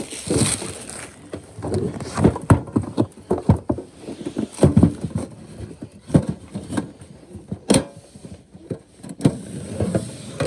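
Clear plastic shrink wrap crinkling as it is pulled off a cardboard trading-card box, with irregular knocks and rustles of the box and packs being handled, and a sharp click about three-quarters of the way in.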